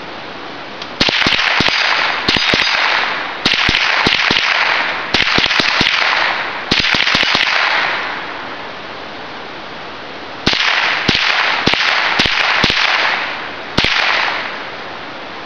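.22 rifle firing about a dozen shots in quick, uneven strings, each shot trailing off into a long echo, with a pause of a few seconds midway.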